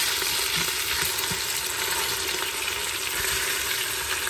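Marinated oxtail pieces sizzling steadily in hot oil in the stainless inner pot of an Instant Pot on its sauté setting, browning on each side.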